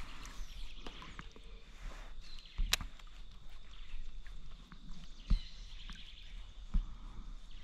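Quiet lake ambience from a kayak: faint bird chirps and three dull knocks a couple of seconds apart, as of gear bumping the kayak's hull.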